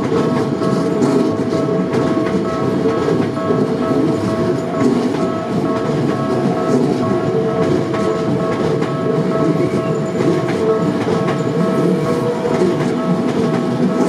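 Electric commuter train running past on the Keikyu main line, its wheels clattering over the rail joints with a dense, steady rumble. Over it, the level crossing's warning bell rings steadily with a high ringing tone, the crossing held shut for the passing train.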